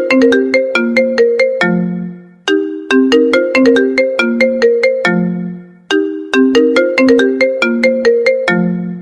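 A smartphone ringtone: a quick melody of short bright notes that repeats about every three and a half seconds. Each phrase ends on a lower held note that fades out.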